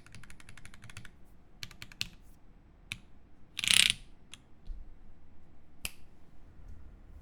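Mechanical keyboard with lubed Alpaca linear switches on a carbon fibre plate and GMK keycaps being typed on quickly. The typing stops about a second in, followed by a few single keystrokes and one brief, louder rasping sound just before the middle.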